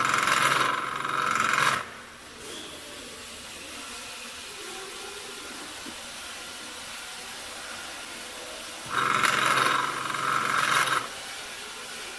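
Motor of a semi-automatic auger powder filling machine running twice, for about two seconds each time, at the start and about nine seconds in. Each run turns the auger to dispense one dose of powder into a cup. A steady lower hum fills the time between runs.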